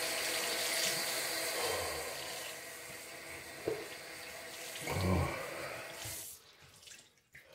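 Bathroom sink tap running into the basin, shut off abruptly about six seconds in. A short vocal sound from the man comes just before it stops.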